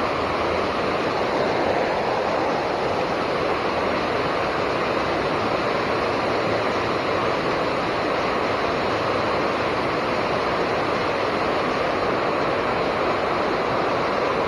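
Water pouring over a low river dam: a steady, even rushing of the waterfall.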